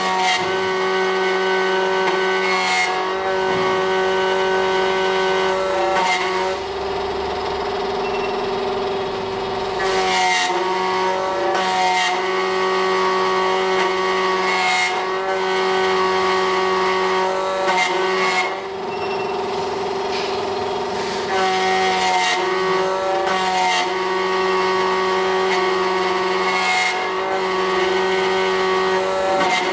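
SEC-E9 CNC key cutting machine milling a Schlage key blank: the cutter spindle motor runs with a steady whine while the cutter works along the key. The sound changes every few seconds as the machine moves between cuts.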